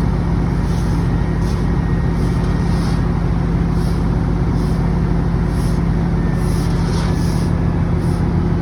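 Heavy engine running steadily at a constant speed.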